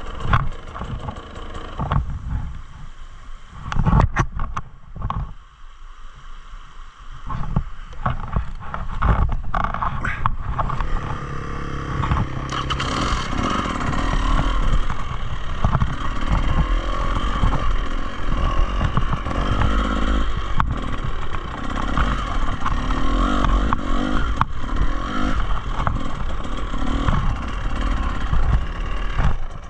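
Enduro dirt bike on a rough trail: for the first dozen seconds the engine is low and uneven under knocks and clattering from the bike over rough ground. About twelve seconds in, the engine picks up and runs steadily under load.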